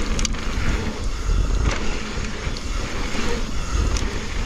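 Wind rushing over the microphone as a mountain bike rolls fast down a dirt jump line, tyres running on loose dirt, with a few sharp clicks or knocks from the bike over the bumps.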